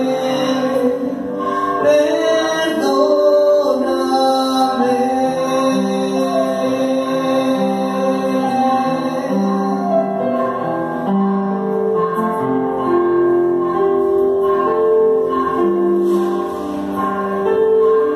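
A Catholic hymn sung into a handheld microphone over electronic keyboard accompaniment. The voice fades from the fore in the second half, and the keyboard plays on alone near the end.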